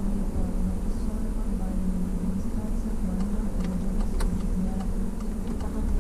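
Inside a moving or idling Peugeot 308: steady engine and road rumble with a low hum. A few faint clicks come in the second half.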